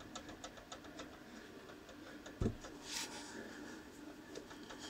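Opel Zafira 2.2 idling with a light rapid ticking rattle, several knocks a second. The F35 gearbox's input shaft is knocking in the sprung hub of the new clutch driven disc, shaken by the engine's idle vibration, so the knock comes from the clutch and not the gearbox. A single thump about two and a half seconds in, then a short hiss.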